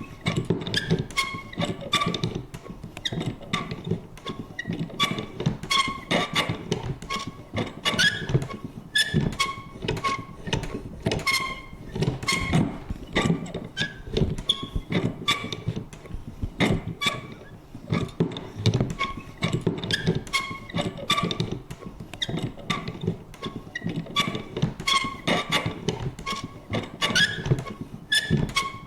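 Vintage paper punch worked again and again: irregular clicks and thunks, several a second, with short squeaky creaks from its mechanism.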